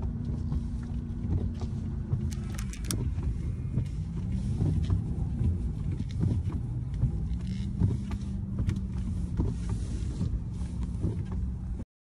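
Honda Ridgeline's V6 engine heard from inside the cab, running at part throttle while the truck is towed through deep snow; its pitch drops about three seconds in and climbs back a few seconds later. A few sharp knocks come about two to three seconds in.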